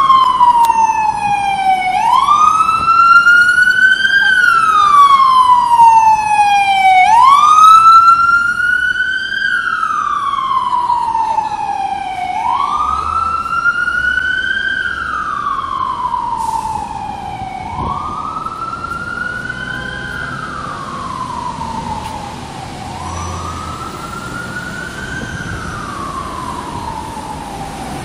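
FDNY emergency vehicle siren in a slow wail, rising for about two seconds and falling for about three, over and over. It is loudest in the first third as the vehicle passes, then fades steadily as it moves off.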